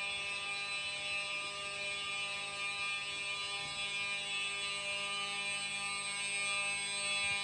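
Fire alarm horn sounding a continuous, steady buzzing tone, with no pulsing.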